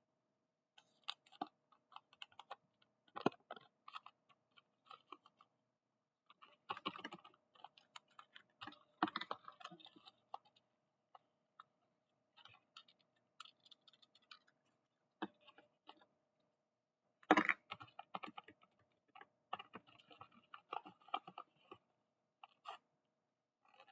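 Irregular crackling, rustling and clicking of a blind bag's packaging and the small stationery items inside being handled, in scattered bursts with the loudest crackle about two-thirds of the way through.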